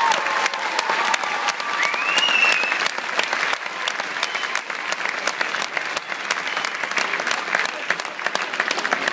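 Audience applauding, with a few high calls from the crowd in the first three seconds, then steady clapping.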